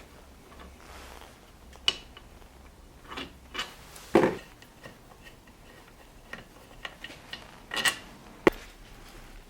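Irregular clicks, clinks and knocks of hand tools and small metal parts handled during a chainsaw teardown. They are spaced unevenly, with sharp single ticks about two seconds in and near the end, and a louder clatter about four seconds in.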